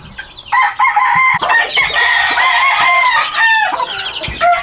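Chickens calling over one another: roosters crowing with long held calls, mixed with clucking, starting about half a second in.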